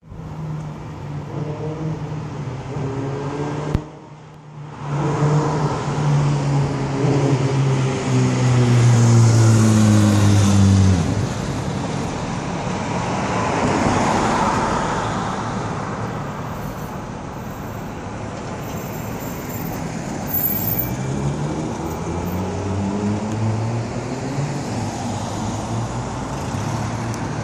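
City street traffic with motor vehicle engines passing. One engine runs steadily, then drops in pitch and stops abruptly about eleven seconds in, at its loudest just before. Passing traffic swells a few seconds later, and near the end an engine climbs in pitch as it accelerates. There is a sharp click about four seconds in.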